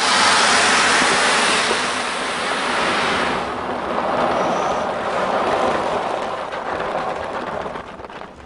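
Unpopped popcorn kernels pouring from a large bag into the corn bin of a Cretors Mach 5 popper: a steady rushing hiss, brightest for the first three seconds or so, then duller, tailing off near the end.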